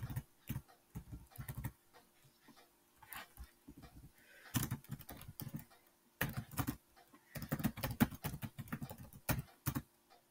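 Typing on a computer keyboard: quick runs of keystroke clicks in several bursts, with pauses of a second or so between them.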